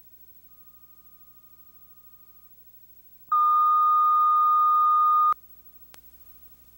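Line-up reference tone from the videotape's bars-and-tone leader: a single steady beep held for about two seconds, starting and cutting off abruptly. A faint click follows it.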